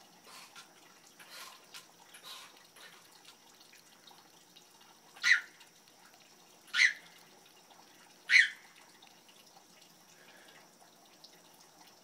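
Three short, sharp animal calls, evenly spaced about a second and a half apart, over a faint steady high hiss.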